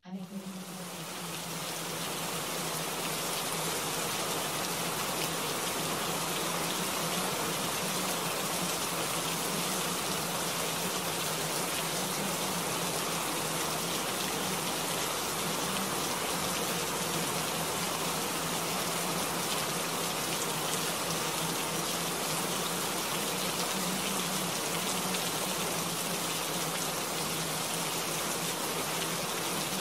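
Steady rain, an even, constant hiss, fading in over the first couple of seconds.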